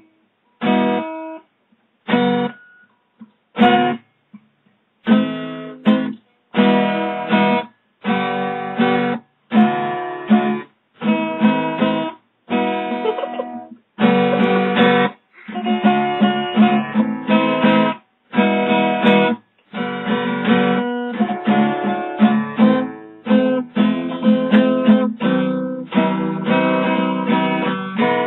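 A guitar strummed chord by chord. For the first few seconds there are single chords with silent gaps between them, then from about five seconds in the strumming runs on more steadily, each chord ringing.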